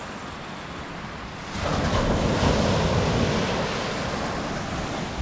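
Sea waves breaking on the beach, with a wave surging in louder about a second and a half in and then fading back, and wind buffeting the microphone.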